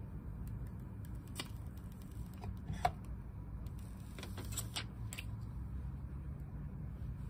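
Scattered light clicks and rustles of a smartphone and its plastic screen sheet being handled in its cardboard box, over a steady low hum. The sharpest click comes near the middle, and a quick run of clicks follows a second or so later.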